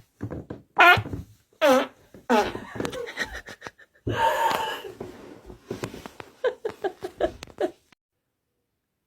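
Farts and laughter in a run of short bursts.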